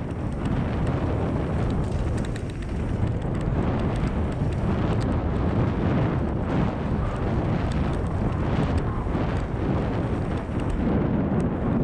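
Wind buffeting the microphone of a bike-mounted action camera, mixed with mountain-bike tyres rolling over a dry dirt trail at speed. Scattered clicks and knocks come from the bike going over bumps.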